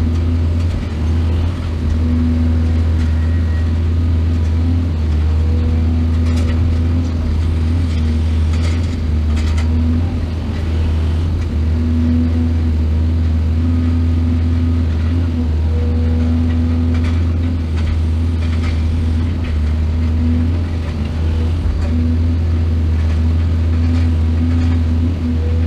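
Excavator's diesel engine running steadily under load, with a few short knocks and clanks from the digging and loading.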